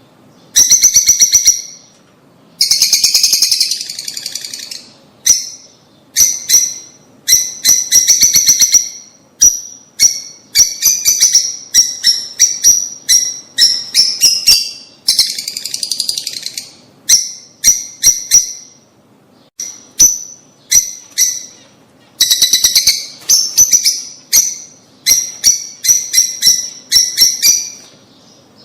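Lovebirds chattering: loud runs of sharp, high-pitched chirps, coming in rapid bursts of a second or two with short pauses between.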